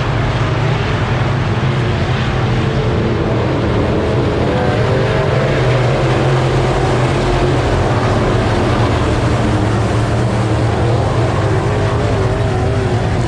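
Several race car engines running loud and steady together on the speedway oval, their pitch wavering up and down as the cars go round.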